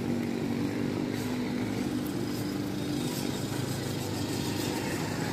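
A motorcycle engine running steadily, its hum slowly fading out about halfway through, over general street noise.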